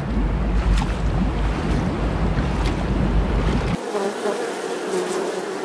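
Sea water rushing, with a deep steady rumble. About two-thirds of the way through it cuts off sharply and a bee buzzes with a steady, slightly wavering hum.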